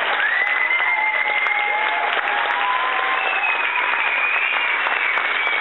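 Audience applauding steadily, with a few long, high cheers held over the clapping.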